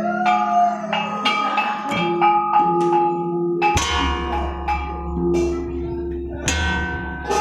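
Gamelan metallophones struck with mallets in a loose, unpatterned way, their bronze keys ringing on in overlapping tones. A deep sustained tone joins about four seconds in.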